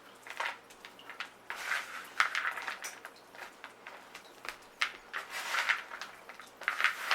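Stirring chocolate chips into cookie dough: a utensil scraping and pushing through the dough in a mixing bowl in irregular strokes.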